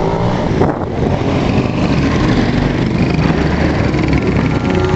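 Small motorcycle engine running at road speed, its pitch rising in the first second, with wind buffeting the microphone.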